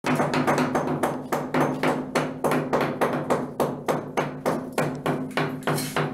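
Hammer chipping old paint off a bathroom wall, blows landing in a quick, steady rhythm of about four a second.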